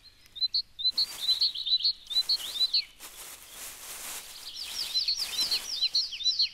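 Small birds chirping: quick series of short, high chirps, a first run over the first few seconds and a second starting about four and a half seconds in, over faint rustling.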